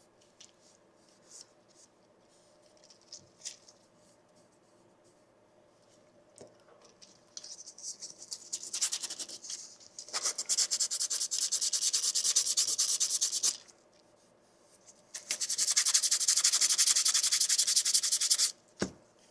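Sandpaper rubbed rapidly back and forth over a 3D-printed plastic part, in two spells of several seconds each, the second starting about fifteen seconds in. A few light handling clicks come before.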